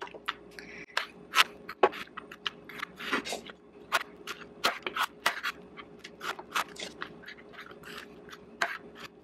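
Chef's knife cutting Brussels sprouts in half on a bamboo cutting board: an irregular series of sharp chops, the blade tapping the wood a few times each second.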